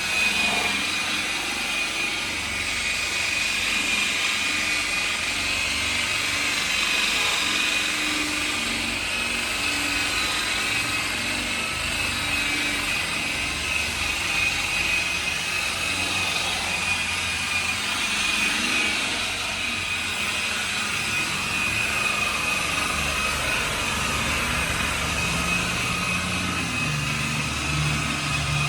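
Handheld machine polisher running steadily, buffing freshly painted car paint after color sanding to bring up the shine, with a steady high whine over the hiss of the pad on the panel.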